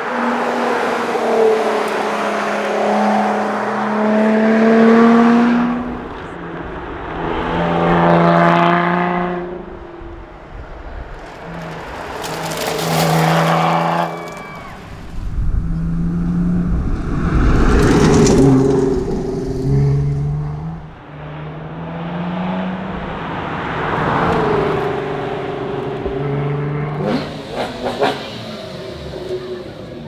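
Lotus Exige 350 S's supercharged V6 accelerating hard on several runs, its note climbing through each gear and dropping back at every upshift, swelling loud as the car passes close.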